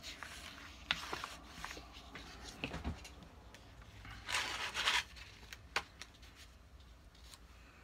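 Hands handling a scrapbook paper page on a cutting mat: scattered light taps and clicks, and a paper rub lasting about half a second a little after four seconds in.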